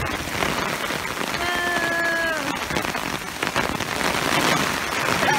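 Heavy rain: a dense, steady patter of drops with many sharp individual ticks, hitting wet pavement and an umbrella close over the microphone.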